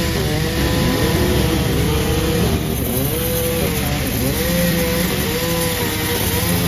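A two-stroke chainsaw running under load while cutting wood, its engine pitch rising and falling every second or so as the bar works through the cut.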